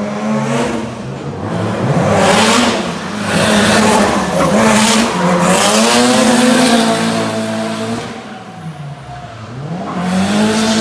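Sports car engine revved hard again and again, its pitch rising and falling, with tyres squealing as the car slides past in a drift. Loudest in the middle, it eases off and then climbs again near the end.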